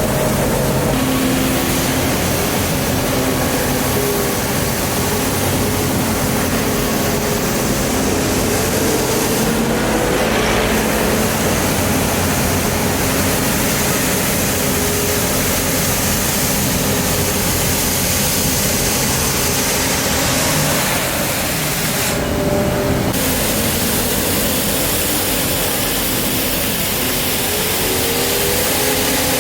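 A vehicle engine running under a loud, steady hiss of noise, with faint tones drifting up and down in pitch.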